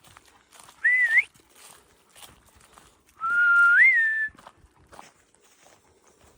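A person whistling to call dogs: a short rising whistle about a second in, then a longer whistle that steps up in pitch partway and levels off.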